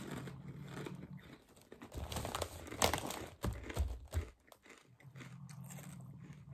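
A person biting into and chewing a thick kettle-cooked potato chip, with a run of sharp crunches through the middle. A faint low hum sits under the start and the end.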